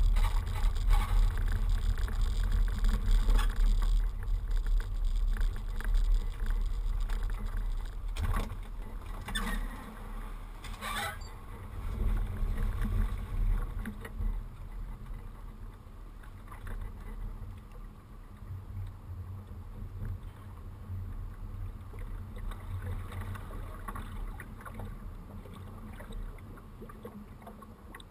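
Boat trailer rolling down a paved launch ramp, picked up by a camera mounted on the trailer: a steady low rumble with a few sharp knocks about eight to eleven seconds in, growing quieter as the trailer slows and goes into the water.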